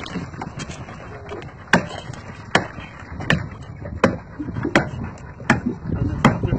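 A paddle striking a large hooked fish at the boat's side: seven heavy whacks, about one every three-quarters of a second, starting about two seconds in.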